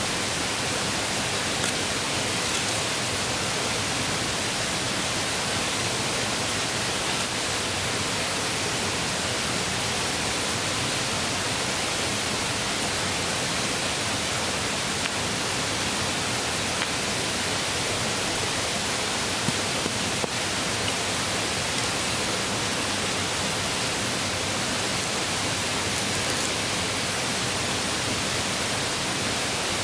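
A river rushing over rocks: a steady, even hiss that does not change, with a couple of faint knocks about two thirds of the way through.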